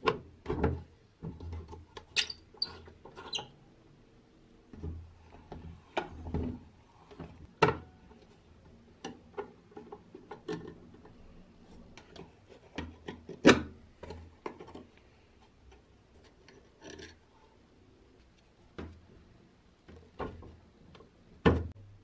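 Scattered clicks, taps and light scraping of metal parts as a rusty vintage hand-crank coffee grinder is taken apart with a wrench and by hand, with a few sharper metal knocks.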